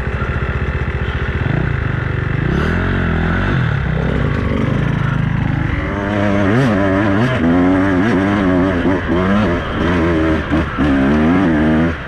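Beta 200RR two-stroke enduro motorcycle engine being ridden. It revs up and down gently at first, then from about six seconds in the throttle is opened and closed quickly many times, the revs swinging rapidly.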